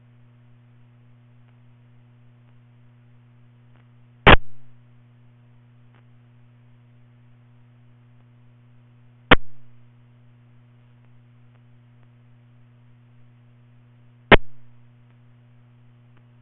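Steady electrical hum from a radio scanner's speaker, broken by three short, sharp bursts about five seconds apart, each fading out within half a second, like brief squelch openings from short transmissions on the channel.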